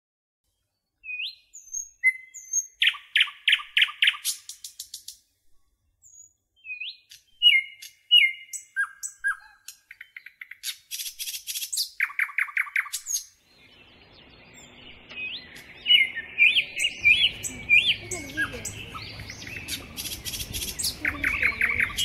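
Small songbirds chirping, with short up-slurred whistles and fast rattling trills. About fourteen seconds in, a steady background hiss comes in under further chirps and warbles.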